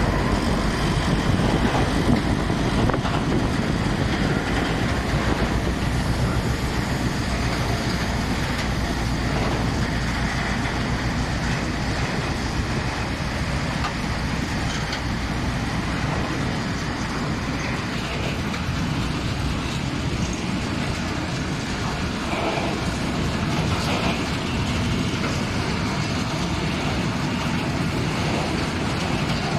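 Freight train of tank wagons rolling slowly past, a steady running noise of wheels on the rails.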